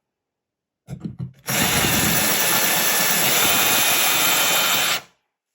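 Power drill fitted with a small ceramic tile drill bit, grinding into a glazed wall tile. A few short starts about a second in lead into a steady run of about three and a half seconds, which stops suddenly.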